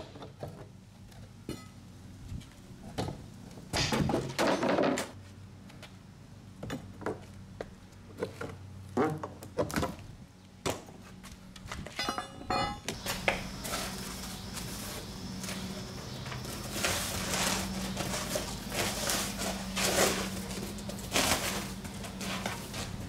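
Knocks and scrapes of a steel pry bar working on rotten wooden wall framing, with a quick rattling run of clicks about twelve seconds in. In the second half a hammer strikes wood repeatedly, tapping a treated-lumber bottom plate into place, over a steady low hum.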